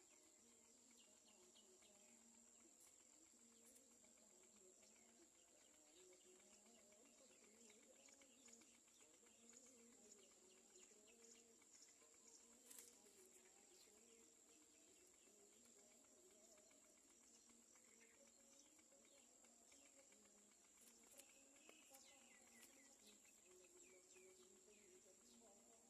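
Near silence: faint outdoor ambience with a steady high-pitched insect drone and a few faint, scattered bird chirps.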